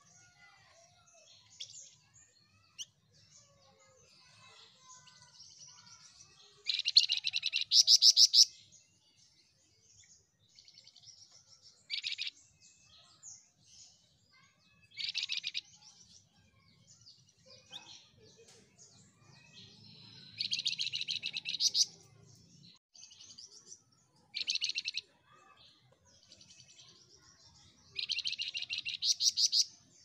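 Caged flamboyan songbird singing: six loud bursts of fast, high trilling notes, each a second or two long, with soft chirps in between.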